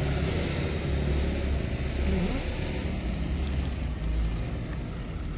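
Car running on a mountain road, heard from inside the cabin: a steady low engine and road rumble.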